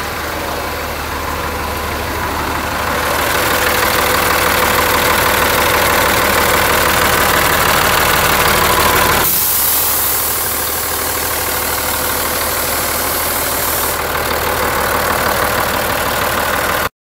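Caterpillar 3306B direct-injection inline-six diesel engine running steadily. The sound cuts off suddenly near the end.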